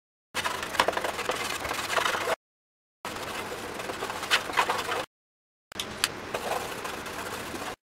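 Coloured pencil scribbling fast on a bare wood panel: a dense scratching with many small sharp strokes. It comes in three stretches of about two seconds, each cut off by a short dead-silent gap.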